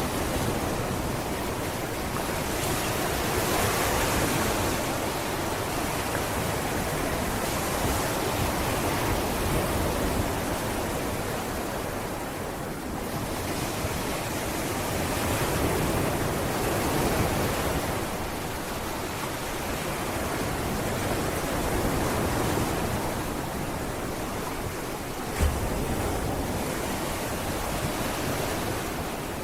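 Sea waves washing onto a beach: a steady rush of surf that swells and eases every few seconds. There is one short knock near the end.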